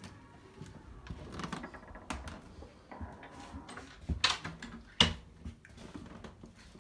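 Room door being unlocked and opened: small clicks and rattles of the lock and handle, then two sharp knocks about four and five seconds in.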